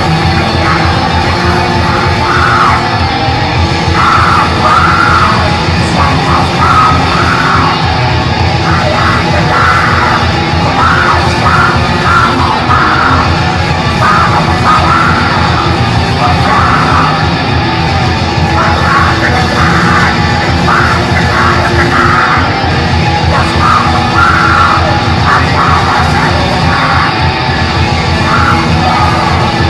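A black metal band playing live, with distorted electric guitars and drums as one dense, continuous wall of sound. Harsh yelled vocals come through the microphone in repeated phrases over the top.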